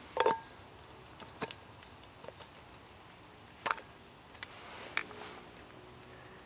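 Drop scone batter frying in oil in a small pan on a wood gas stove, a faint steady sizzle. A few sharp clicks and knocks cut across it, the loudest just after the start, others about a second and a half, three and a half and five seconds in.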